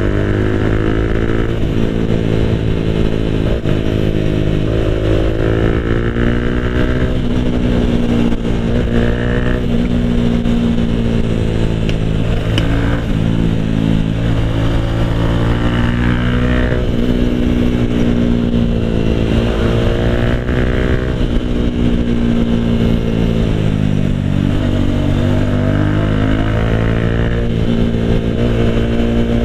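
Motorcycle engine and exhaust heard from the rider's seat while riding, loud, with the revs rising and falling with the throttle and a deeper drop and climb back late on.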